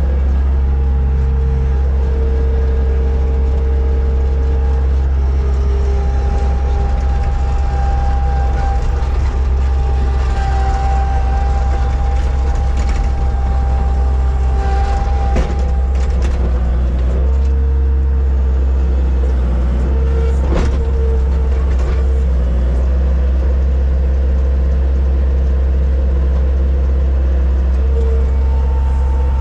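A vehicle engine running steadily at an even speed, with a strong deep drone and a few brief clicks partway through.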